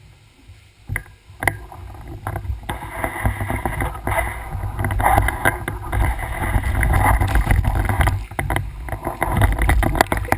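Mountain bike being ridden over rough trail, picked up on a bike- or rider-mounted camera: a couple of clicks about a second in, then steady wind rumble on the microphone with constant rattling builds up and runs loud.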